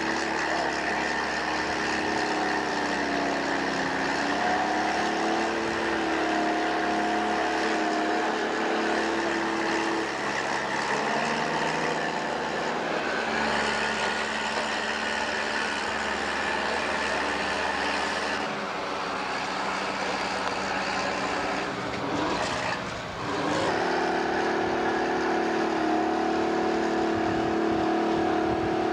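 Crawler bulldozer's diesel engine running, its pitch rising and falling with changes in engine speed. About three-quarters of the way through the sound briefly dips and shifts, then settles back to a steady run.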